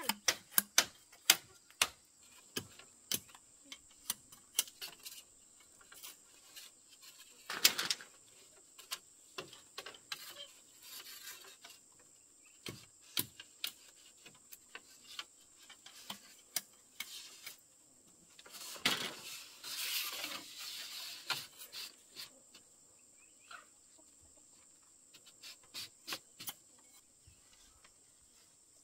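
Irregular sharp knocks and clicks, as of objects being handled and set down, with a longer rustle about two-thirds of the way in, over a faint steady high-pitched tone.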